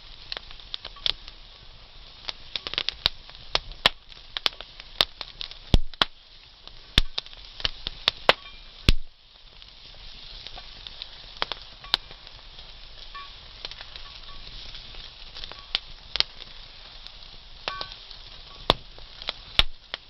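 Campfire crackling with frequent sharp, irregular pops, over a steady sizzle of food cooking above the flames.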